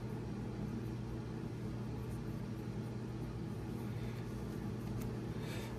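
Steady low electrical hum with a faint hiss in the background.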